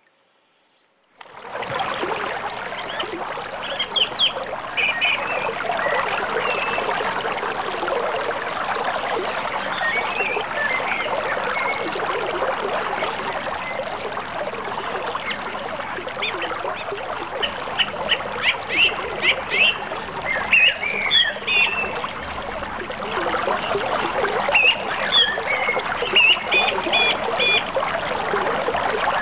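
Steady rush of flowing creek water, with birds chirping and trilling over it. The sound cuts in abruptly about a second and a half in.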